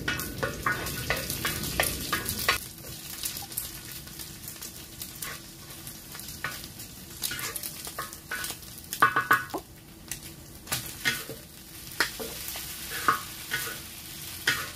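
Eggs frying in a large wok while a wooden spatula scrapes and taps against the pan, stirring and breaking them up. The frying hiss is strongest in the first couple of seconds; after that, irregular spatula scrapes and clicks dominate.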